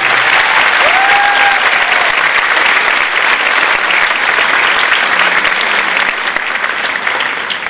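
Large audience applauding, a dense steady clapping that begins to thin out near the end.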